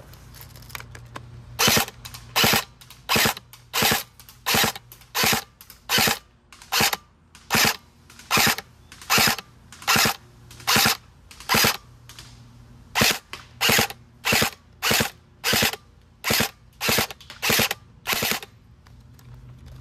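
Electric airsoft SCAR-L rifle firing single shots in semi-auto, about one shot every 0.7 s, with a short pause about halfway through; each shot is one cycle of the stock gearbox, which the owner finds sluggish.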